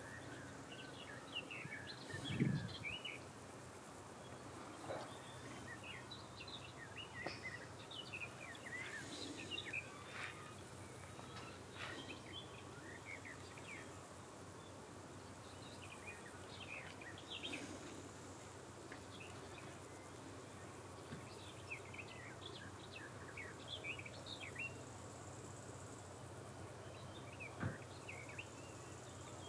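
Faint outdoor ambience of small birds chirping and twittering in short, scattered calls over a steady background hum, with a single dull thump about two and a half seconds in.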